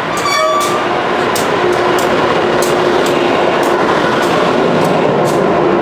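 Amtrak electric locomotive and its passenger cars passing close by on the platform track, wheels clicking over rail joints about twice a second over a steady rumble and hum. A brief high-pitched chirp sounds just after the start.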